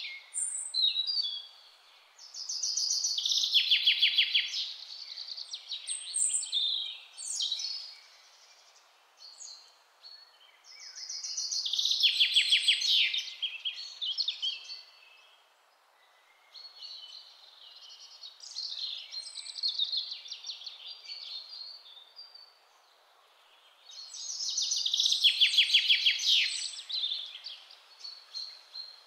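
Birdsong from a songbird: three loud song phrases about ten seconds apart, each with a fast trill, and quieter chirps between them.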